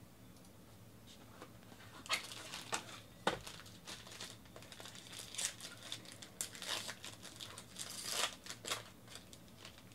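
Foil wrapper of a Topps Tier One baseball card pack crinkling and tearing as it is handled and ripped open: irregular sharp crackles begin about two seconds in and keep on until near the end.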